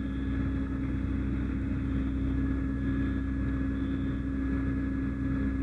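Fire engine's engine running steadily, a constant low hum with a faint high whine over it.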